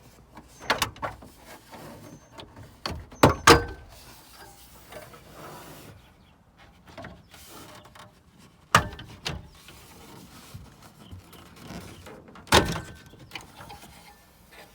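Plastic steering column shroud on a 2004 Chevy Silverado being pried loose by hand, its retaining tabs letting go with several sharp snaps and clicks, with plastic rubbing and scraping between them.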